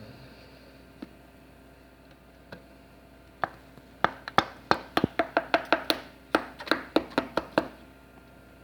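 Sharp knocks and clicks of a 3D print being worked loose from a 2 mm glass plate as it starts to release. One knock comes about three and a half seconds in, then a quick, irregular run of them for about four seconds.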